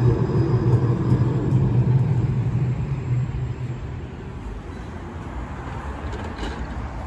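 Electric tram running past close by, a low steady rumble of motors and wheels on rail that fades away over the first three or four seconds. After that only a quieter, even hum of a tram standing at a stop.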